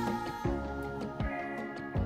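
Background music with sustained notes and a soft low beat.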